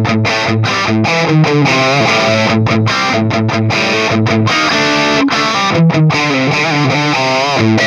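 Electric guitar played through the Flatsons KE1 multi-effects pedal's amp simulation: a riff of chords and single notes with short breaks between phrases.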